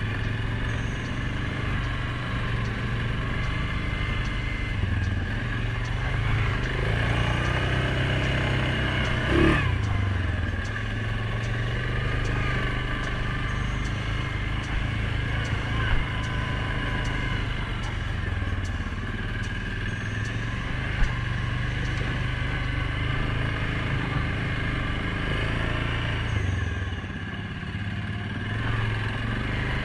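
Suzuki King Quad 750 ATV's single-cylinder four-stroke engine running while riding a dirt trail, its pitch rising and falling with the throttle. A couple of sharp knocks from the machine jolting over bumps.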